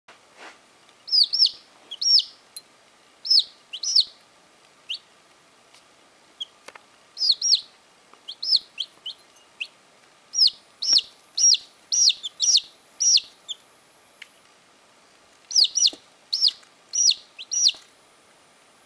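Baby chickens peeping: short, high peeps in quick runs of two to five, with pauses of a second or two between runs.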